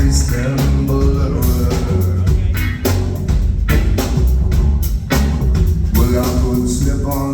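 Live rock band playing loudly through a concert PA, with drums keeping a steady beat over a heavy bass line.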